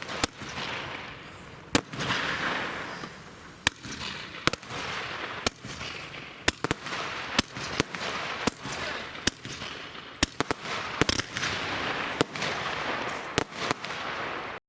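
Fireworks going off: sharp bangs at irregular intervals, about one or two a second, over continuous crackling and hissing. The sound cuts off suddenly near the end.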